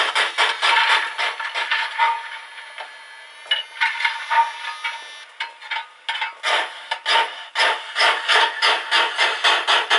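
Lenz O gauge DB Br98.8 model steam locomotive's DCC sound decoder playing rhythmic steam exhaust chuffs through its small speaker, about five a second, over a faint steady whine. The chuffs die down about two seconds in and pick up again after about six seconds.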